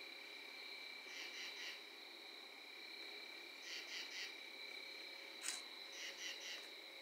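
Crickets chirping: a steady high trill, with a louder chirp of three quick pulses repeating about every two and a half seconds. There is one sharp click about five and a half seconds in.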